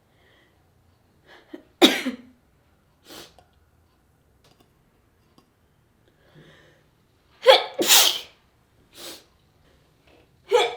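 A person sneezing repeatedly, brought on by white pepper: a quick in-breath, then a sharp sneeze about two seconds in, a double sneeze about seven and a half seconds in, and another beginning at the very end, with short breaths between.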